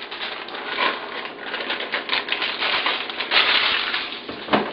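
A busy run of small clicks and rustling as a bag of walnuts is handled, the nuts rattling inside.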